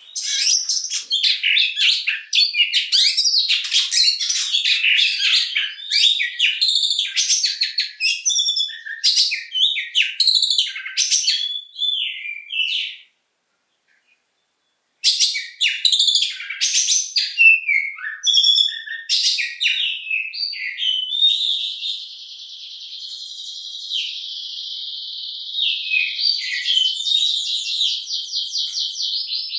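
Oriental magpie-robin singing a varied song of quick whistles, chirps and trills, with a silent gap of about two seconds near the middle. In the last third it switches to a long, fast, buzzy trill of rapidly repeated notes.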